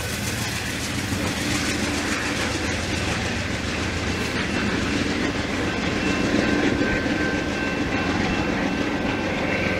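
Amtrak Downeaster passenger train running away out of sight, a steady rumble of wheels on the rails with clickety-clack. A faint high ringing tone joins about six seconds in.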